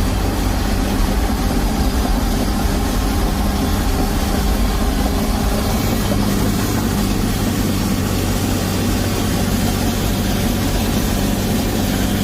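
Cat D7 bulldozer's diesel engine running steadily while towing a loaded truck, a constant low drone at an even pitch.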